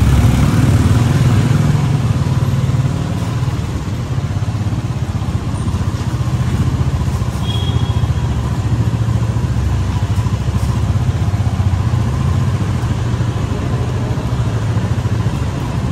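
Motor vehicle running along a road, a steady low rumble with no break.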